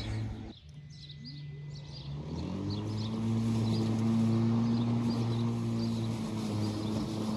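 Viking MA 400 cordless mower's 750 W electric motor and blade running with a steady hum, rising in pitch about two and a half seconds in and then holding steady.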